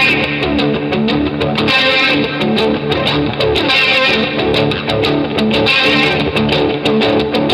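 Rock music: a strummed electric guitar riff with some distortion over a steady drum beat, with no singing.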